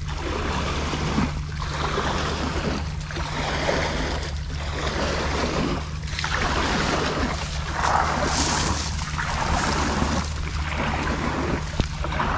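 Water sloshing in repeated surges about every second and a half, over a steady low motor hum.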